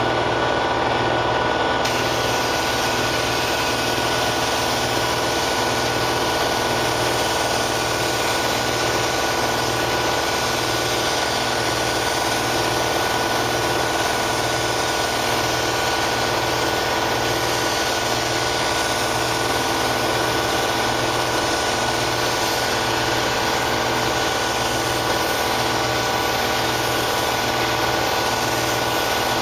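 Steady mechanical hum with fixed tones under a constant rushing air hiss, the hiss brightening about two seconds in: a compressed-air paint spray gun laying down clear coat over running shop machinery.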